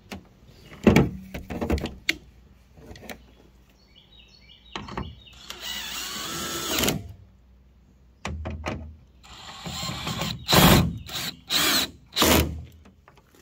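DeWalt 20V cordless drill/driver driving the tail light's 8 mm bolts back in: one longer run about halfway through, then several short bursts near the end, with knocks of the tail light assembly being pushed into place about a second in.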